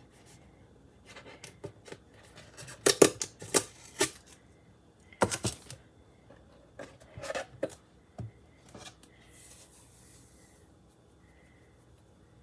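A new salt canister being opened by hand: a string of sharp clicks, taps and scrapes as the pour spout is worked open, loudest about three to four seconds in, followed by a short hiss near the end.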